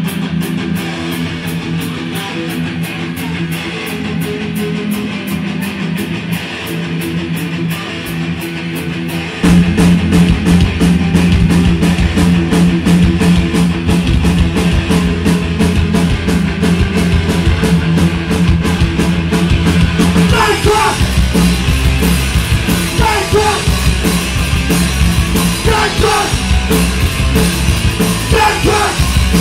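Punk band playing live: an electric guitar intro, with the full band of drums and bass crashing in about a third of the way through, and shouted singing starting about two-thirds of the way in.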